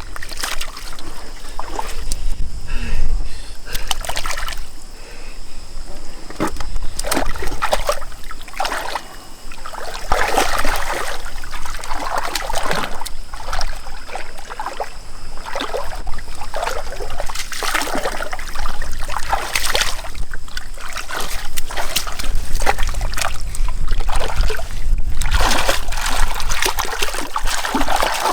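Water splashing and sloshing in irregular bursts, with trickling and dripping in between.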